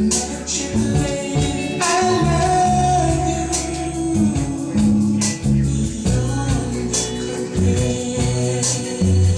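Soul band recording playing: a stepping bass line and drums with steady cymbal strokes, under held voices or chords.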